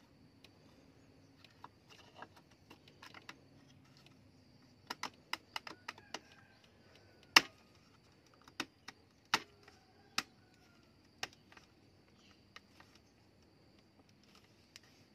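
Sharp metal clicks and taps as a small steel trigger mechanism is handled and fitted into the groove of a wooden spear-gun stock, with a thin metal rod in hand. A quick run of clicks comes about five seconds in, and the loudest click about seven seconds in.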